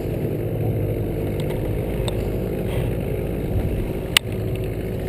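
Boat's outboard motor running at a steady speed while under way. A single sharp click or knock sounds about four seconds in.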